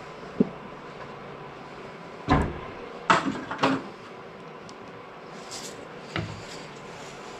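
A few separate knocks and clunks of objects being handled and set down, the loudest pair about three seconds in, with a brief hiss in between.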